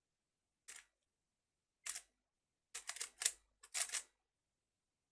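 Rubik's speedcube being turned fast by hand: short bursts of quick plastic clicks, with a couple of single turns and then denser flurries about three to four seconds in.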